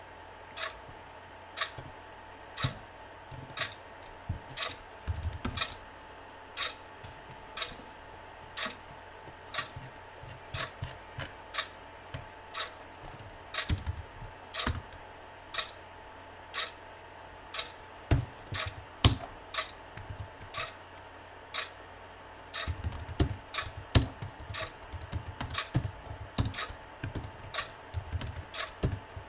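Computer keyboard typing in bursts of rapid keystrokes, over a clock ticking steadily about once a second, with a few louder single clicks in between.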